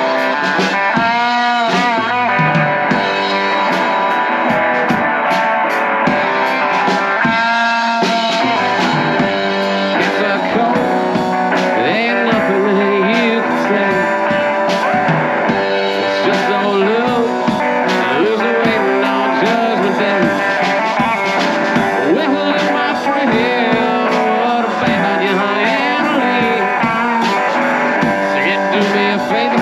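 Live electric guitar and drum kit playing an instrumental break of a blues-rock song, the guitar playing lead lines with bent, wavering notes over a steady drum beat.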